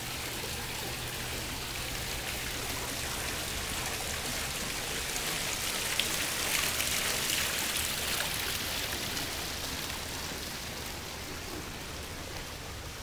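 Water splashing and trickling down the tiers of an artificial rock waterfall fountain, a steady hiss that grows louder toward the middle and slowly fades near the end.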